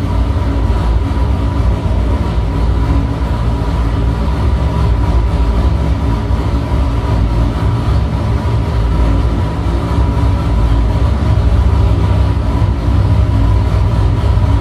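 Big V8 drag-racing engine running on an engine dyno, holding a steady speed with no rise or fall in pitch.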